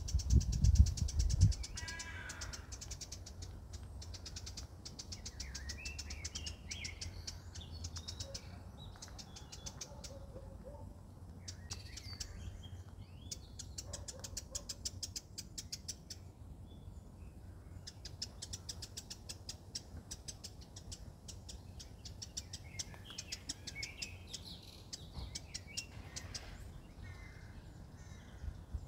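Birds chirping now and then over a steady, fast, high-pitched ticking trill, with a low steady hum underneath. A brief low rumble in the first second or so.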